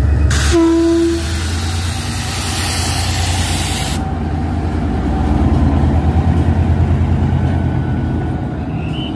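Diesel locomotive passing close by, its engine running with a deep, pulsing rumble. A brief horn toot sounds about half a second in. A loud hiss lasts through the first four seconds and stops sharply.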